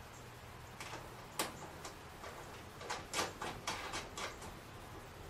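Scattered sharp clicks and taps from handling small hardware and hand tools while fitting T-nuts into sheet metal: one about a second and a half in, then a quick cluster of about six over the next second and a half.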